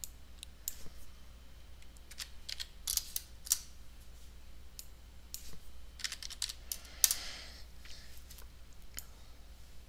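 Irregular clicks and taps of a computer keyboard and mouse, coming in small clusters, over a faint steady low hum.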